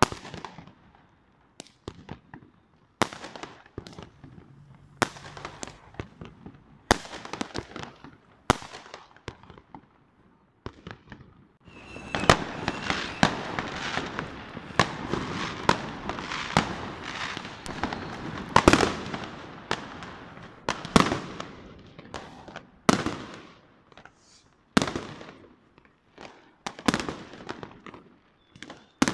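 New Year's Eve fireworks and firecrackers going off: separate sharp bangs every second or two, then, about twelve seconds in, a dense crackling barrage thick with bangs that lasts about ten seconds before it thins back to single bangs.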